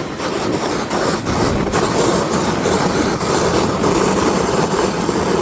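Sled sliding down a snowy hill: a steady, loud rushing and scraping of the sled over the snow, mixed with wind on the microphone.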